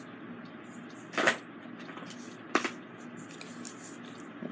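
Small handling sounds of diamond painting: a drill pen and plastic resin drills clicking and scraping on the canvas and tray, two short ones standing out, the louder about a second in and another at about two and a half seconds.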